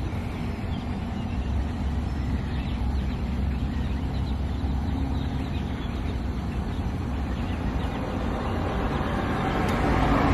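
Steady low rumble of a running engine, unchanging throughout.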